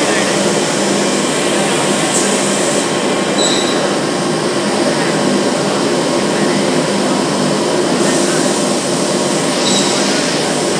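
Altendorf F5 edge banding machine running, a loud, steady mechanical drone that holds an even level throughout.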